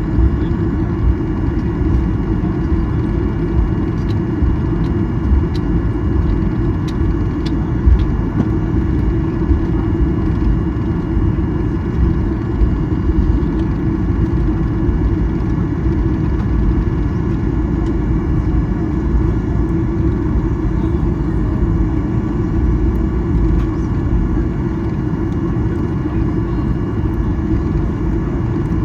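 Cabin noise of a Boeing 737-800 taxiing, its CFM56-7B engines running at low power: a steady low rumble with a faint steady whine above it, and a few faint clicks in the first several seconds.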